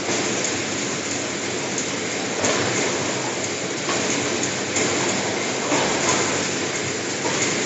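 Cake packing line running: conveyors and the wrapping machine make a steady, dense mechanical noise, with a brief louder surge every second or two.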